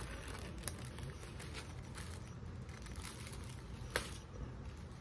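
Clear plastic film being peeled off a microwaved frozen-meal tray and handled, crinkling faintly, with one sharp crackle about four seconds in.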